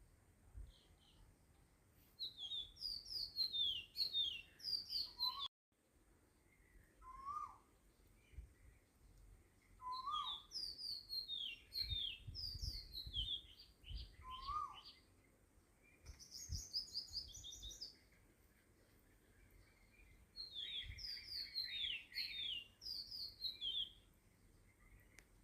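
Small birds chirping in quick runs of short, high, falling notes, in several bursts with pauses between, plus a few lower rising calls.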